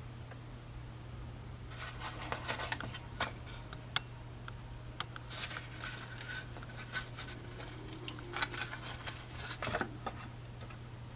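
Scattered light clicks, taps and rustles of hands placing canned biscuit dough onto pot pie filling in a baking dish, starting about two seconds in, over a steady low hum.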